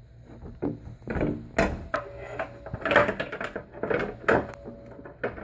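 Doorbell chime cover being handled and fitted back onto the chime: a run of knocks, clicks and scrapes, loudest about three seconds in.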